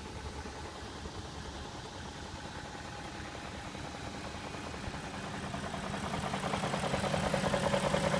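BMW M62B44 4.4-litre V8 running with a fast rattling knock, which the owner puts down to the VANOS variable valve timing units. It grows louder about two-thirds of the way through.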